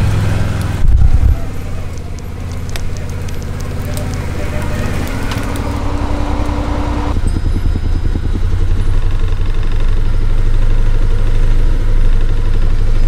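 Can-Am Defender UTV's engine running with a steady low drone, and a loud low thump about a second in.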